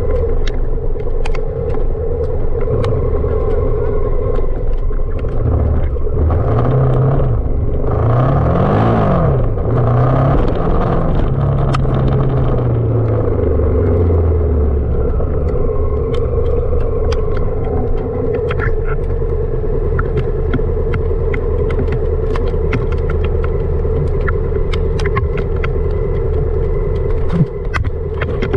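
Honda Africa Twin CRF1000L DCT's parallel-twin engine running while riding off-road, its revs rising and falling several times between about six and fourteen seconds in, with scattered sharp clicks throughout.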